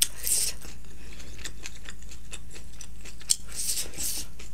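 Close-miked mouth sounds from chewing and swallowing a last mouthful: scattered soft lip smacks and wet clicks, with a couple of short breathy hisses, one at the start and one near the end.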